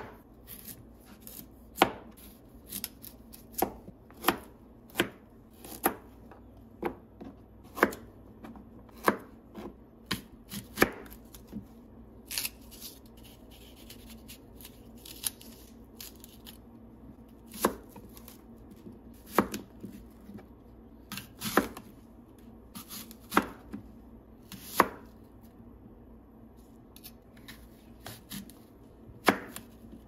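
Chef's knife cutting a raw beetroot and then apples on a plastic cutting board: irregular sharp knocks as the blade strikes the board, roughly one every second or two and sometimes in quick pairs.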